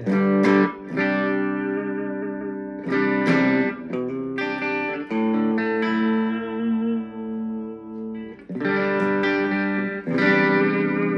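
Ibanez Gio electric guitar with Tokai pickups, chords strummed and left to ring, with a fresh strum every second or two.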